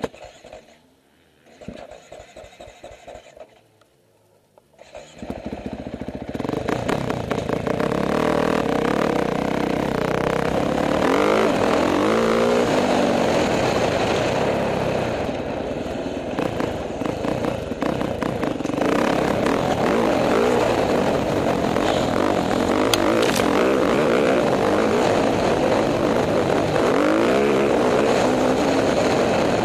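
KTM 450 XC-F dirt bike's four-stroke single-cylinder engine, heard from the rider's helmet: quiet at first, then about five seconds in it pulls away and runs loud under throttle, its note rising and falling as the rider revs and changes gear.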